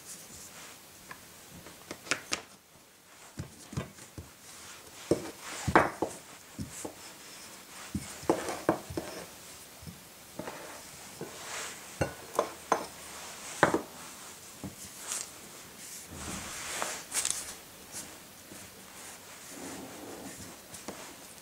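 Kitchen preparation sounds: irregular taps and knocks of utensils on a work surface, with rubbing and handling noise between them.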